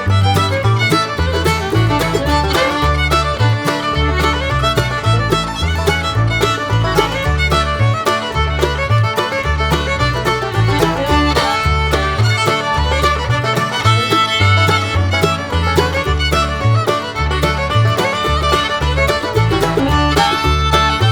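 Background music: an upbeat fiddle tune with a steady plucked bass line, in a bluegrass or country style.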